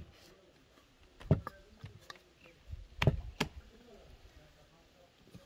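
Hands working bread dough in an enamel bowl, with a few sharp knocks and thumps from the bowl being handled: a pair about one and a half seconds in and another pair about three seconds in.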